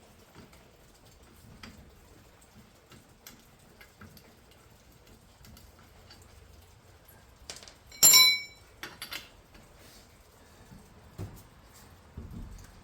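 Metal wheel-change hardware being handled: scattered light clicks, then about eight seconds in one loud, ringing metallic clank, followed by a few smaller knocks.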